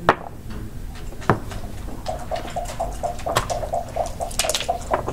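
Hard clacks of backgammon checkers and dice cup on the board. From about two seconds in, dice rattling fast in a leather dice cup for about three seconds, with a few sharper clacks near the end.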